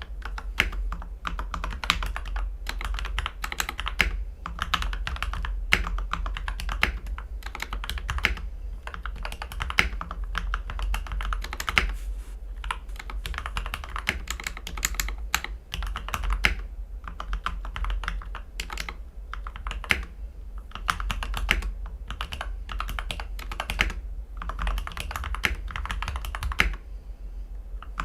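Steady typing on a CIY X77 mechanical keyboard with Gateron Ink V2 Black linear switches, lubed with GPL 205 and filmed, in an aluminium plate with tape and PE foam mods. The keystrokes come in quick, irregular runs with short pauses, over a constant low hum.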